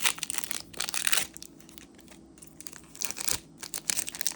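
Foil wrapper of a Magic: The Gathering collector booster pack crinkling and tearing as it is opened by hand, in two spells of crackling with a quieter stretch in the middle.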